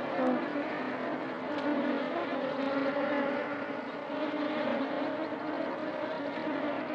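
A steady, engine-like drone with a rushing hiss and a few wavering low tones, played as a sound effect in a stage drama.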